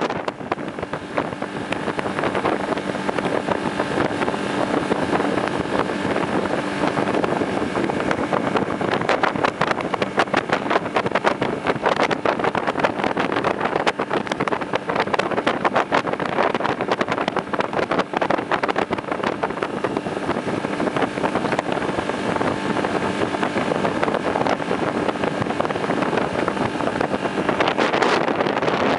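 Motorboat engine running steadily under way, with rushing wind and water noise over the microphone.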